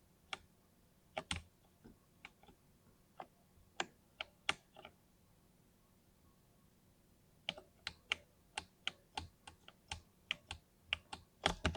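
Keystrokes on a 60% mini mechanical keyboard with lubed linear switches: scattered single presses at first, a pause of about two seconds around the middle, then quicker, steadier typing.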